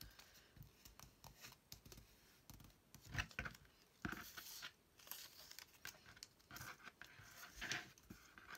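Faint tabletop craft handling: a strip of washi tape is pulled off its roll and torn, with paper rustling and a few light clicks.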